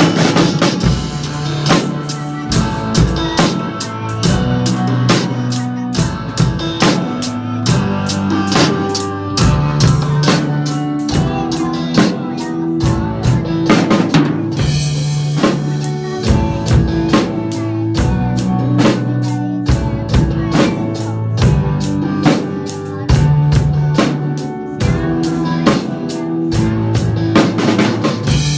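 Acoustic drum kit played live along with an instrumental backing track of a Chinese pop ballad: a steady bass-drum, snare and cymbal groove over bass and melody.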